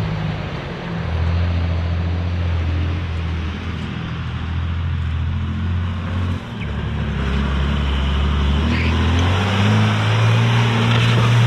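Cummins turbo-diesel pickup engine working hard off-road, its pitch dropping and climbing with the throttle, with a brief dip about six seconds in and a rise near the end.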